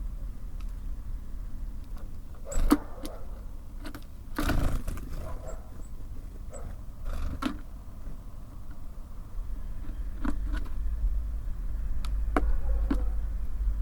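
Birds at a feeder: scattered sharp taps and knocks of pecking and landing, with a few faint high chirps, over a steady low rumble that grows louder in the second half.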